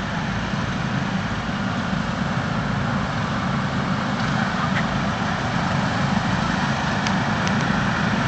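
Lawn mower engines running steadily, growing a little louder near the end.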